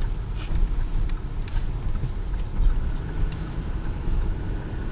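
Inside-the-cab drive noise of a 2008 Ford F-250 Super Duty with a 6.4 L Power Stroke turbo diesel: a steady low rumble of engine and tyres on the road, with scattered light clicks and rattles.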